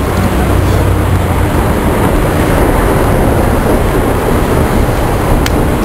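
Loud, steady city traffic noise: vehicle engines running with a low hum over the first second and a half, and a sharp click near the end.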